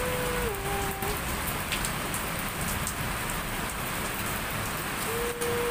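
Heavy rain pouring steadily, with occasional sharp drop ticks close by. A two-tone siren alternates between two notes for about the first second and comes back near the end.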